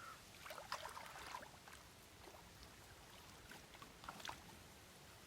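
Faint splashing and dripping of water, a few small splashes about a second in and again near four seconds, over near silence.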